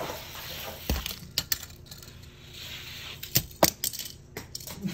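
Die-cast Hot Wheels cars clicking and clattering against a plastic track and against each other: a string of sharp metallic taps, the loudest a pair about three and a half seconds in.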